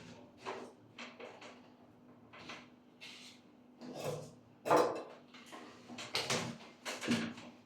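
Irregular scrapes, knocks and rustles of parts being handled and pulled out by hand, the loudest a few seconds in and near the end, over a faint steady hum.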